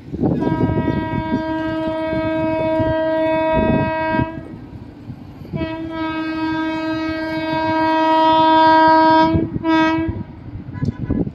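WAP7 electric locomotive's horn sounding two long blasts of about four seconds each, then a short blast, over the rumble of the running train.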